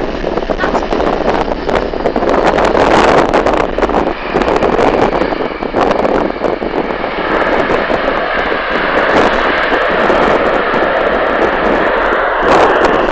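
Jet airliner's engines running on the landing rollout, mixed with heavy wind buffeting on the microphone. A faint steady whine comes in about halfway through.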